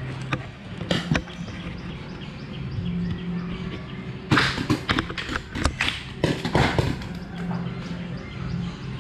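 Paintball markers firing in two bursts of rapid sharp pops, a little before halfway and again about two seconds later, with scattered single shots around them.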